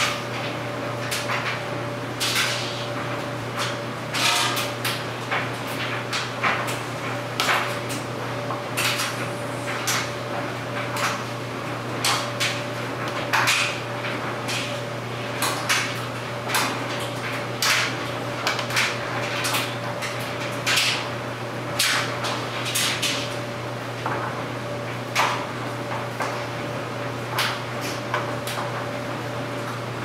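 Clothes dryer running: a steady motor hum under irregular clicks and knocks, roughly one or two a second, as the load tumbles in the drum.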